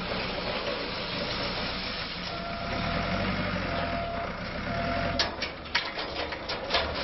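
Forklift engine running as it tips a bin of lump charcoal, with a high tone that comes and goes three times. From about five seconds in, hard charcoal pieces clatter as they pour into the hopper.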